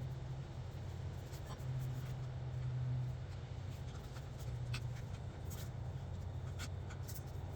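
Light, irregular clicks and scraping of hand work on metal engine fittings, over a steady low hum.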